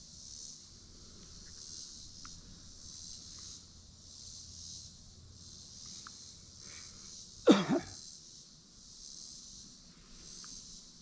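Evening insect chorus: a steady high buzz that swells and fades about once a second. About seven and a half seconds in, a person lets out one short, loud cough-like sound.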